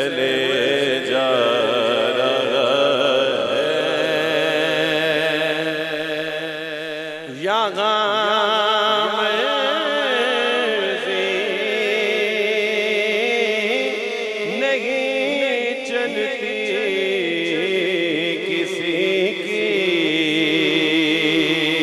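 Male naat reciter singing through a microphone and PA, holding long wavering melismatic notes with no clear words, over a steady low hum. About seven seconds in the voice breaks off briefly, then a new phrase begins.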